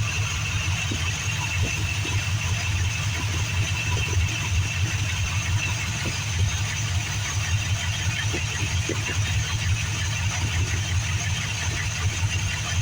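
1957 Chevrolet Bel Air engine idling steadily, with a thin steady high whine over the throb, while freshly added coolant circulates through the new radiator. The owners put the noise down to the water pump having run dry, something they expect to settle after a little while.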